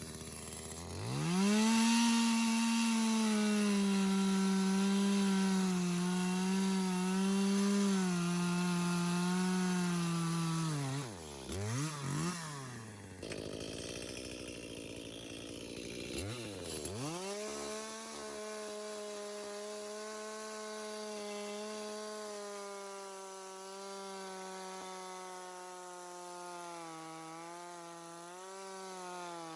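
Two-stroke chainsaw revved up and cutting into a camellia trunk, its pitch wavering under load. About 11 seconds in it drops back, blips twice and idles, then revs up again near 17 seconds and runs on more steadily and a little quieter.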